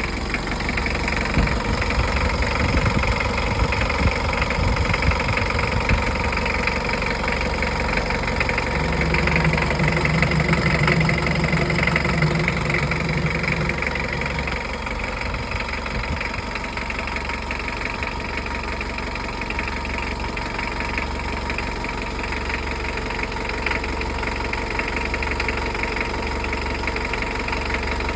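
Mitsubishi L300 diesel engine running at idle after an engine rebuild, steady and even. Between about nine and fourteen seconds in it runs a little faster and louder, then settles back to idle.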